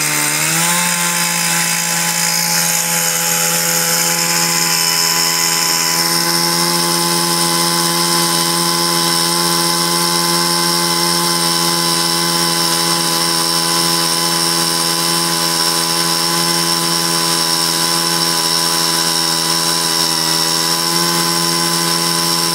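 Small two-stroke petrol engine of a rail bonding drill revving up within the first second, then running steadily at high speed as the drill bores into the steel rail. A higher hiss over the engine eases about six seconds in.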